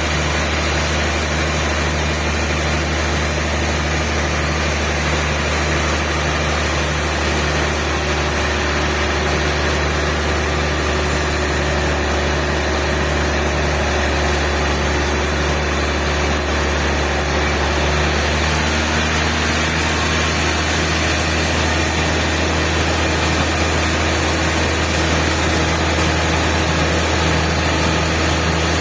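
Sawmill machinery running steadily, a constant low engine-like hum with a steady mechanical hiss over it.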